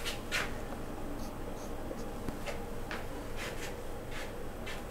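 A few short, faint strokes of a marker on a whiteboard, spread out over steady quiet room tone.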